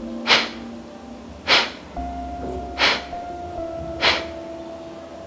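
Kapalbhati breathing: four short, forceful exhalations through the nose at a slow, even pace, about one every 1.2 seconds, over soft background music.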